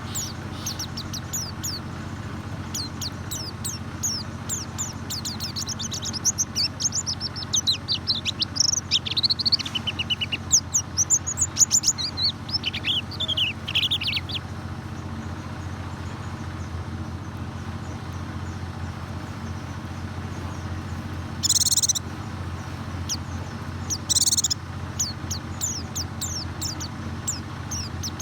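White-eye (pleci) singing: rapid high twittering chirps, densest in the first half and sparser later, with two short buzzy calls near the end, over a steady low hum.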